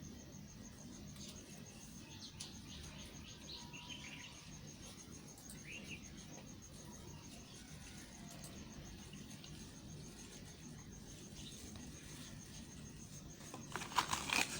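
Background insect trilling, a steady, rapidly pulsing high tone, with a few short bird chirps. Near the end, a run of loud crackling, crunching sounds starts.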